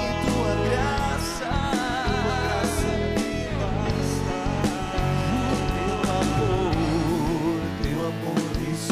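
Worship band music with guitars and a singing voice holding and bending notes.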